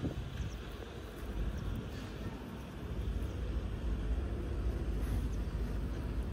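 Wind buffeting the microphone: a steady low rumble that grows a little louder about three seconds in.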